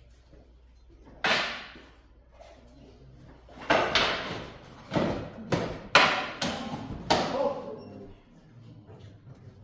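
Wooden practice jian swords clacking in a sword fight: one sharp hit about a second in, then a rapid flurry of about six strikes in the middle, each ringing briefly in a large hall.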